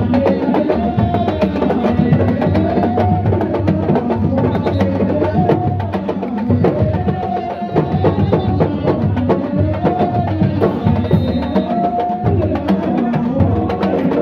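Sabar drums beating rapidly and continuously, with a repeating sung line over them: the percussion that accompanies Senegalese wrestling.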